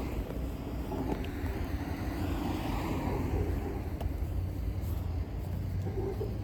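A moving vehicle running with a steady low rumble and a hiss of road or track noise over it.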